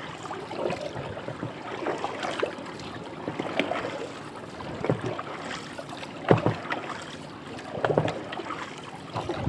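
Paddle strokes in water as a small boat is paddled by hand: a splash and slosh about every second and a half, with water lapping in between.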